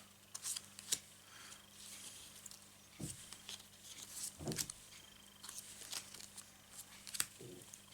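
Playing-card-style game cards being handled and turned over: scattered light clicks, flicks and taps of card stock, with two duller knocks around three and four and a half seconds in, over a faint steady hum.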